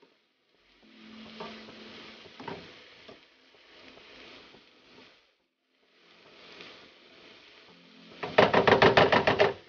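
Diced sweet peppers sizzling softly in a frying pan as a spatula stirs them, with light scrapes and taps against the pan. Near the end, a loud fast run of sharp knocks, about seven a second, for over a second.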